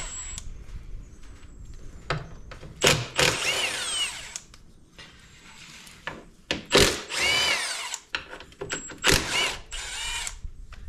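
Cordless impact wrench running in bursts as it spins out the foot-peg mounting bolts on a Honda Big Red 300 ATV: three main runs, about three, seven and nine seconds in, with the motor's pitch rising and falling within each, and shorter blips between.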